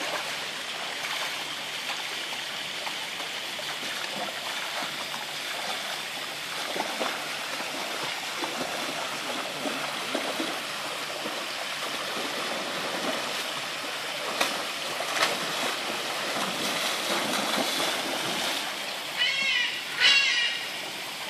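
Steady rushing water with splashing as a white tiger wades through a shallow pool. Near the end come two short high-pitched calls.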